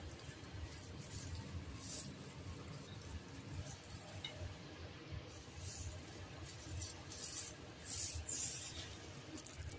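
Soft rustling and crinkling of a thin plastic food-prep glove as a hand shifts sushi rolls on a tray, coming in scattered bursts.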